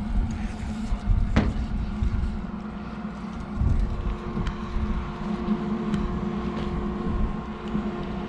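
Steady mechanical hum over a low rumble, with a few light knocks.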